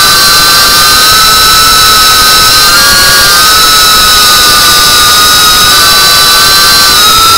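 FPV quadcopter's brushless motors and propellers whining loudly and steadily, heard from the camera mounted on the drone. The pitch dips and rises slightly with the throttle as the drone banks, about three seconds in and again near the end.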